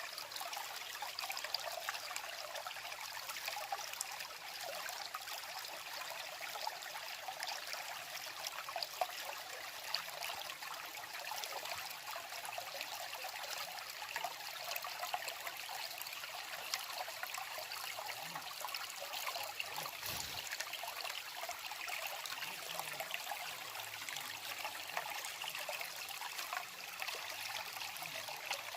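Shallow stream babbling and trickling steadily over stones, an even bubbling with fine crackle throughout.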